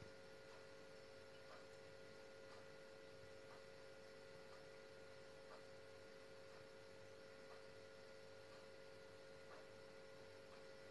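Near silence: room tone with a faint steady hum and a soft tick about once a second.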